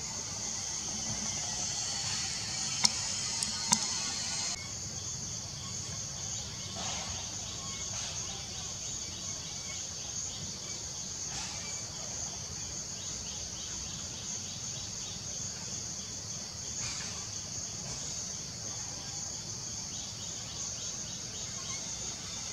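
Forest ambience: a steady high-pitched insect drone with a low steady rumble beneath it, and two sharp clicks about three seconds in.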